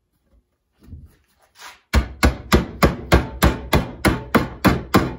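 Hammer striking sheet metal in a steady run of blows, about three a second, starting about two seconds in after some light handling clatter: the cut tabs of a sheet-metal panel being hammered over to a 90-degree bend.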